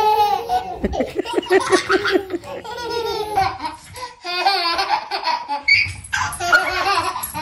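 Babies laughing in repeated giggles and belly laughs, with a short break about four seconds in.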